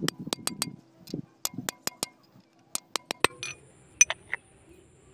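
Sharp metal clinks of a hammer tapping a steel bar held against the rotary shaft of a VST Shakti 130 DI power tiller, driving a bush into the rotary housing. There is a fast run of about six strikes at the start, then scattered taps, mostly in twos and threes.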